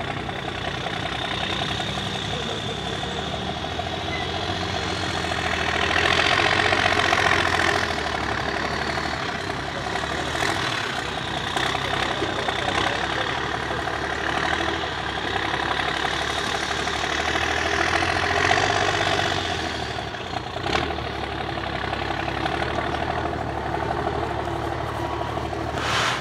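Diesel engine of a MAN off-road trial truck running under load as it crawls through deep ruts, swelling louder twice as it is revved.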